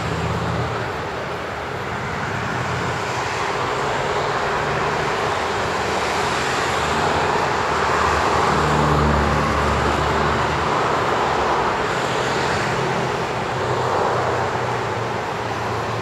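Road traffic on a city street: a steady rush of tyres and engines, swelling loudest about halfway through as vehicles pass close by.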